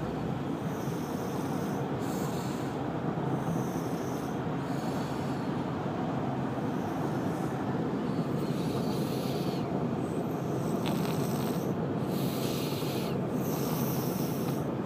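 A person snoring in a repeating rhythm, roughly every one and a half to two seconds, over a steady low rumble.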